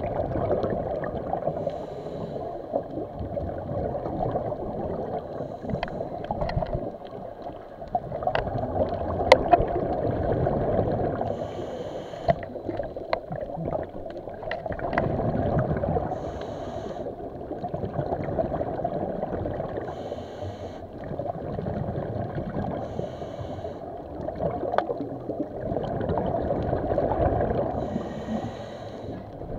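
Muffled underwater breathing: bubbles gurgling in swells every three to four seconds, with short hissing breaths between them and a few sharp clicks about eight to ten seconds in.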